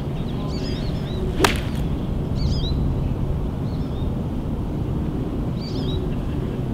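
A golf club strikes the ball once, a sharp click about a second and a half in, on a short pitch shot from the grass. Birds chirp briefly a few times over a steady low rumble.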